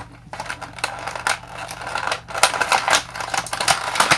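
Plastic toy packaging crinkling and crackling as it is handled and pulled open, a dense run of irregular crackles.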